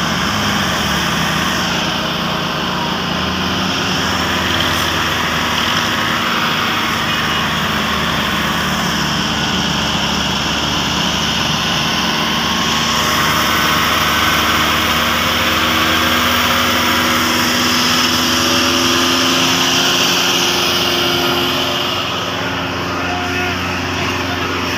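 Dewan Foton 550 tractor's diesel engine running hard under heavy load, hauling a trolley loaded with mud. The engine note holds steady, rises a little in the middle and eases near the end.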